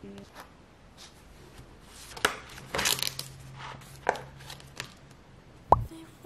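Paper booklet being handled and leafed through: a few sharp taps and a rustle of turning pages around the middle, then a louder sharp knock near the end.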